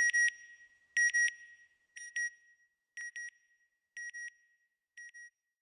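Electronic double beep, high and clear, repeating once a second six times and fading away.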